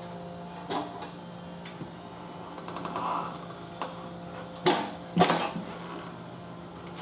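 Knocks and scraping from a tire being levered off a steel wheel on a manual tire changer. A sharp knock comes early, a rubbing sound follows, and the loudest part is a cluster of metal knocks and scrapes with a brief high ringing squeal about four and a half seconds in. A steady low hum runs underneath.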